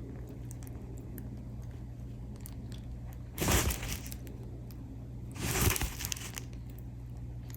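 Two short crinkling rustles, about two seconds apart, from the plastic-covered diamond painting canvas being handled, over a low steady hum.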